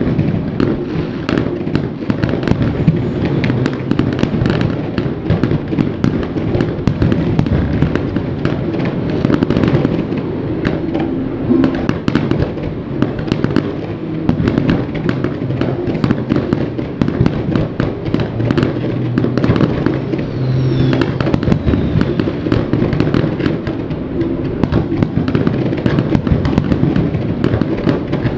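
Fireworks display: shell bursts and crackling follow one another in quick, dense succession, with no gaps.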